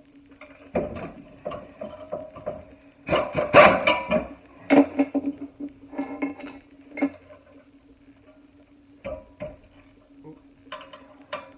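Brake parts and tools being handled: irregular clinks and clatter in several short clusters, loudest about three to four seconds in, over a steady low hum.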